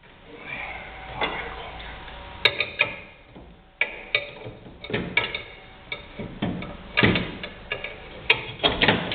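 Irregular metallic clicks and knocks from hand tools and metal parts as a coil spring is worked into a car's front suspension. A few heavier clunks come about seven seconds in and near the end.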